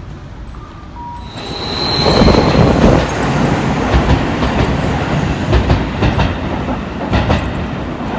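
Seibu Railway electric train passing close by from about a second in: a loud rushing rumble with a repeated clatter of wheels over rail joints, and a brief high-pitched squeal as it arrives.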